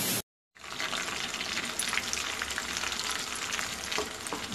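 Chicken pakodas deep-frying in hot oil: steady sizzling with dense fine crackling as a slotted spoon moves them. The sizzling starts after a brief moment of silence near the start.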